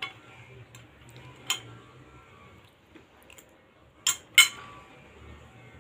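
Metal spoon clinking and scraping against a plate while eating: a few sharp clinks, the loudest a pair about four seconds in.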